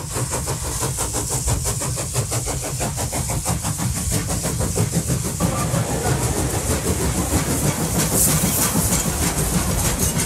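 A steady, loud, engine-like rumble with a fast, even pulse, changing about halfway through to the rumble of a passenger train moving past along a platform.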